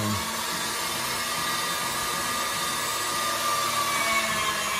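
Electric pasta machine's motor running with a steady whir as its rollers turn, with a sheet of egg dough being fed between them near the end.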